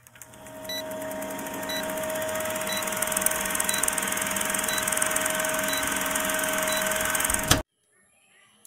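Old film-countdown sound effect: the steady whirring rattle of a film projector with a short blip about once a second. It fades in over the first second and cuts off suddenly near the end.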